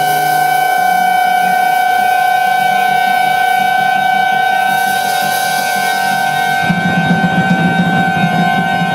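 Live jazz band with saxophone and trumpet holding one long steady note over acoustic bass, drums and keys. About two-thirds in, the high shimmer drops away and the lower part of the band grows busier.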